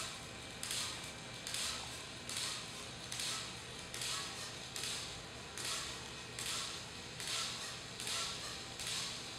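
Salto-1P, a small jumping robot with propeller thrusters, hopping repeatedly in place: a rhythmic burst of whirring noise with a sharp start about every 0.8 s, one per hop.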